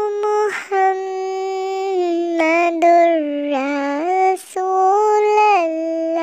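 A single high voice singing slowly in long held notes that step up and down in pitch, with short breaths between phrases.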